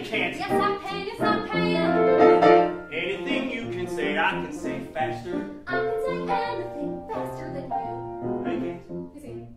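Musical-theatre duet sung live by a man and a woman with piano accompaniment.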